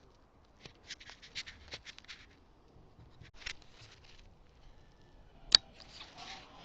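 Scattered small clicks and rustles of handling, then a single sharp crack about five and a half seconds in, the shot of an HW97K spring-piston air rifle.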